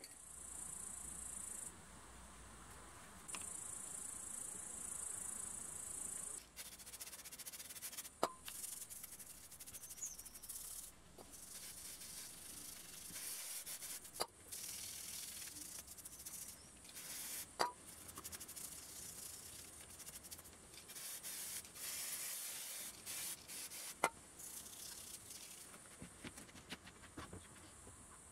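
Hand work on a rusty car gearbox: rubbing and scraping, with four sharp metal clinks spread through and a high hiss in the first few seconds.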